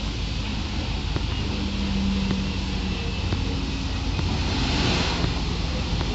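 Steady wind noise buffeting the microphone over a low rumble, with a faint hum in the middle and a brief rise in hiss near the end.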